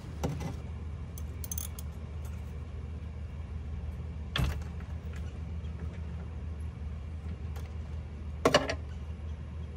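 Sharp metal clinks of a hand tool working the oil drain plug loose under an Onan MicroLite 2800 generator: a few scattered clicks, the loudest about four and a half seconds in and a close double clink near the end, over a steady low hum.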